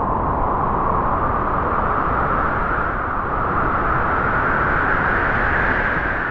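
Wind blowing in one long gust. Its pitch rises slowly, and it begins to die away near the end.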